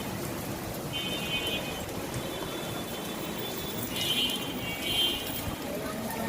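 Heavy rain falling steadily in a downpour. Several short high-pitched tones sound over it, most strongly a little past halfway through.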